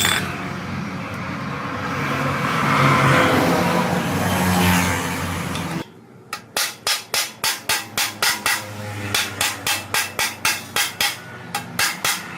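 A loud whirring power-tool-like noise for about six seconds, cut off abruptly, followed by steady hammer blows on metal at about three strikes a second.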